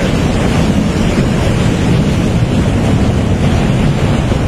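Flash-flood torrent of muddy water and rocks rushing down a mountain stream bed: a loud, steady rushing noise, deepest and heaviest at the low end.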